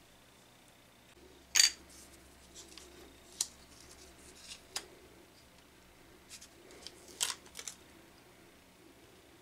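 Paper photo label being handled and wrapped around a brass pen tube: a few brief rustles and taps, the loudest about one and a half seconds in and another cluster about seven seconds in.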